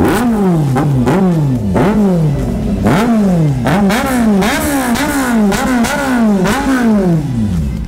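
Kawasaki inline-four naked bike with an aftermarket Akrapovic exhaust, revved while standing still: about a dozen quick throttle blips, each rising sharply in pitch and falling back over half a second or so.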